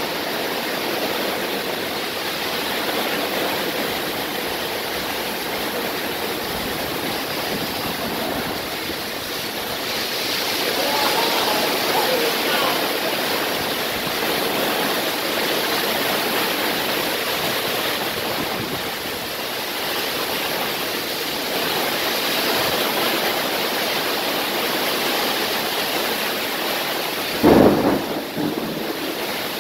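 Heavy rain pouring steadily. A sudden loud clap of thunder comes near the end.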